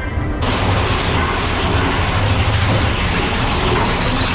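Big Thunder Mountain Railroad mine-train roller coaster running along its track, a loud steady rumble and rattle that comes in abruptly about half a second in.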